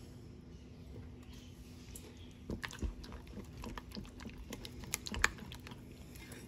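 Silicone spatula stirring a thick homemade Russian dressing in a bowl: irregular soft clicks and squelches, with a short cluster of louder taps about two and a half seconds in and again around five seconds.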